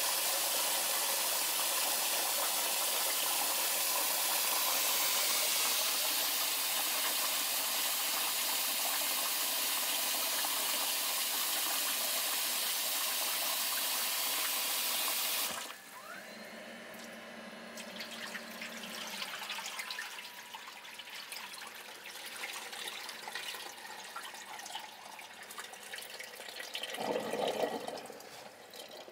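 Kitchen tap running steadily into a stainless steel bowl while salmon roe is swirled and rinsed by hand. The running water cuts off suddenly about halfway through, leaving quieter, uneven splashing and dripping as the bowl is handled, with a louder splash near the end.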